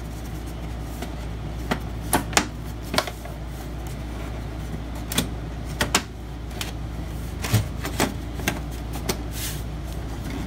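Scattered clicks and knocks of a desktop computer's side panel being handled and fitted back onto the case, over a steady low hum.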